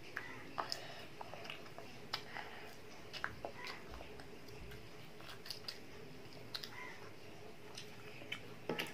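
A child biting and chewing fried chicken lollipops, with faint, irregular mouth clicks and smacks.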